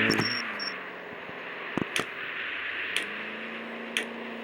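Chevrolet Chevette engine under way: its note drops right at the start after revving up, as on a gear change, then holds steady about three seconds in, over road and tyre noise. Sharp clicks come about once a second.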